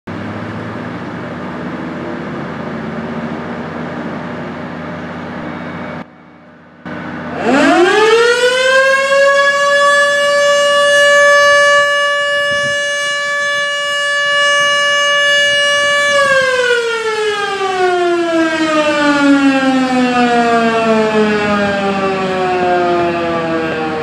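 Federal Signal Model 2 fire-station siren being tested: about seven seconds in it winds up quickly to one steady high tone, holds it for about eight seconds, then begins a long, slow wind-down with the pitch falling steadily.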